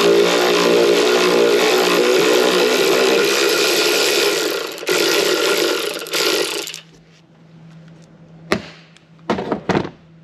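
Cordless power tool on a long extension running steadily for about seven seconds, with a short break about five seconds in, unscrewing the battery hold-down strap bolt. After it stops, a few sharp metal clicks and knocks.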